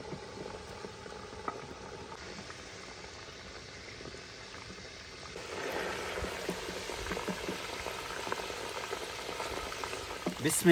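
Hot cooking oil bubbling and sizzling in a clay karahi as fried chicken pieces are ladled out, with faint ticks of the ladle. The sizzle grows louder about halfway through.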